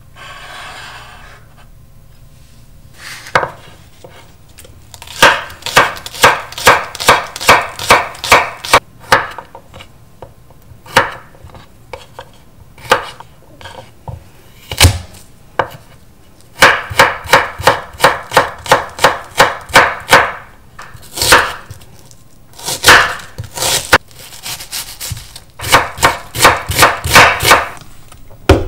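Kitchen knife chopping green onions and garlic on a wooden cutting board. After a quiet first few seconds come runs of quick, even strokes, about three or four a second, broken by pauses and single cuts.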